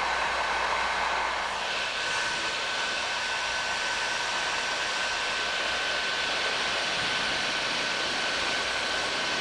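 Bauer heat gun running on its highest setting, a steady rush of hot air with a thin high whine, heating a copper pipe joint for soldering. The hiss brightens slightly about a second and a half in.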